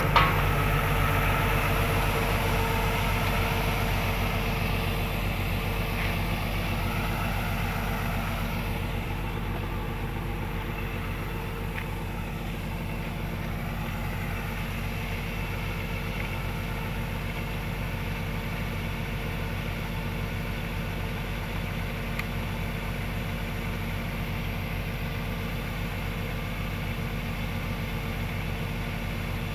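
Kubota DC105X combine harvester's diesel engine running steadily under load while its unloading auger pours rice grain into a truck bed. A short knock sounds right at the start, and the hiss of the pouring grain fades over the first several seconds as the sound grows a little quieter.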